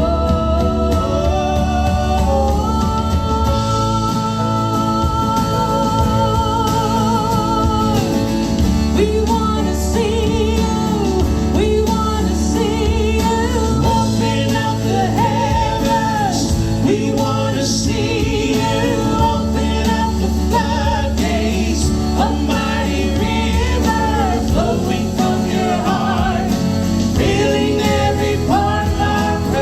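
Live worship band music with a singer leading over a steady band sound and bass, in a contemporary Christian worship style.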